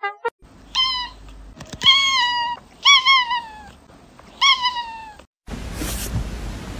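Domestic cat meowing about five times in short, high calls that each fall in pitch. Near the end a steady hiss takes over.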